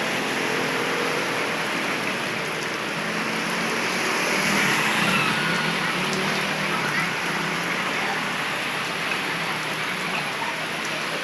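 Heavy rain pouring down on a flooded street as a steady, dense hiss. Motorbike engines pass through the floodwater partway through.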